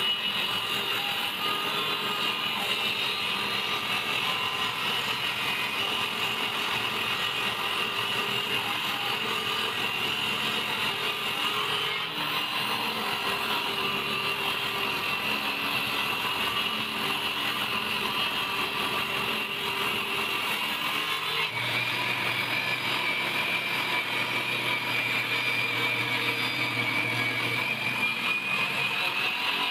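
A power tool running steadily on wood with a high whine, its pitch wavering a little under load. The sound changes abruptly twice, about 12 and 21 seconds in.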